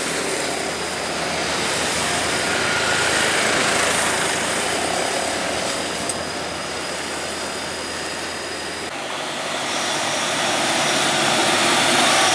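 Traffic climbing a steep hill: diesel truck engines running steadily under load, with tyre noise as a loaded light truck and a van pass. The sound changes abruptly about nine seconds in, then a heavier truck engine grows louder toward the end.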